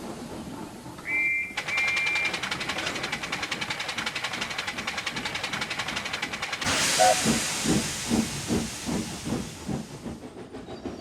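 Steam engine sound effects: a short two-toned steam whistle blast, then rapid, even chuffing with steam hiss. Past the middle a loud rush of escaping steam gives way to slower, heavier chuffs that fade.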